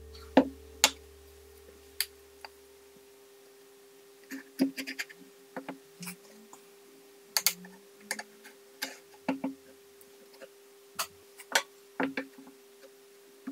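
Irregular light clicks and knocks of plywood panels and aluminium linear rails and bearing blocks being handled and fitted together on a workbench.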